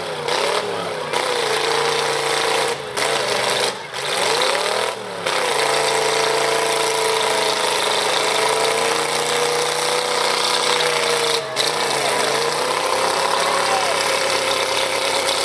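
Demolition derby car engines running, their pitch rising and falling as they rev during the first few seconds, then holding steadier under a dense, loud wash of noise.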